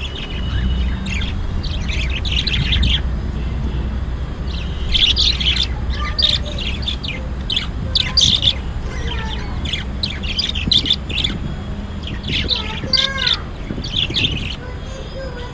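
Pet budgerigars chirping and chattering, with many short calls and quick pitch glides in irregular runs. A steady low hum runs underneath.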